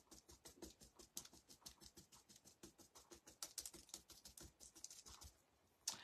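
Paintbrush dabbing and brushing paint on a paper-plate palette and small hot-glue mold pieces: a faint, quick patter of small taps and scratchy strokes that stops briefly near the end.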